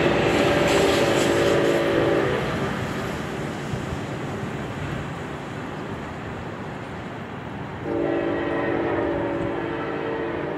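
Amtrak Pacific Surfliner passenger train sounding its multi-tone horn twice while it rolls away: the first blast ends about two seconds in, and the second starts near the end. Between the blasts the train's rumble and wheel noise fade.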